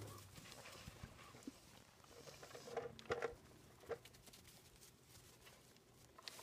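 Faint sounds of lambs and a ewe moving about on straw bedding, with a few short knocks around the middle.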